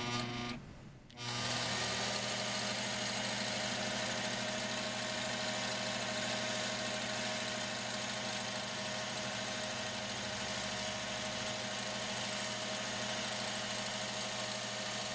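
Long-arm quilting machine running and stitching, with a steady motor-and-needle hum after a short burst and a brief pause about a second in. It stitches with the stitch regulator off, at a slightly reduced speed.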